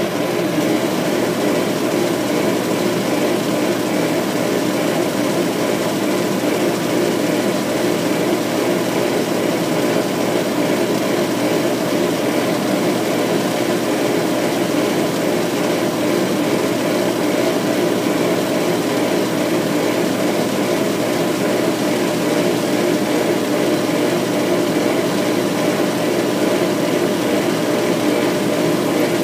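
Laser engraver running a raster etching job: a steady mechanical whir of the machine as its head sweeps across the work, unchanging throughout.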